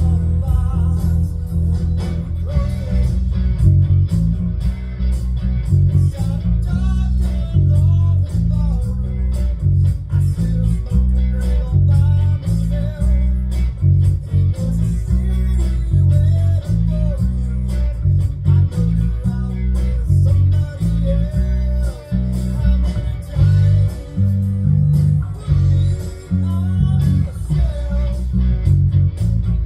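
Electric bass guitar playing a blues bass line, plucked notes in a steady rhythm, with guitar music above it.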